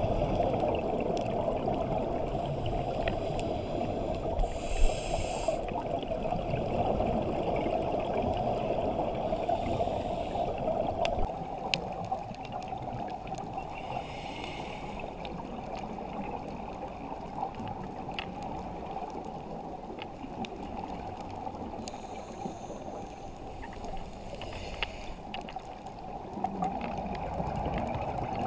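Underwater sound picked up through a GoPro's waterproof housing: a steady, muffled water rush, with short hissing bubble bursts every few seconds from a scuba diver's exhaled breath.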